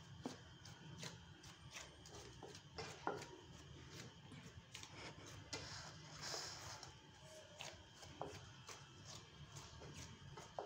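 Hands kneading whole-wheat roti dough in a steel bowl: faint, irregular soft pats, squishes and small knocks against the bowl, over a steady low hum.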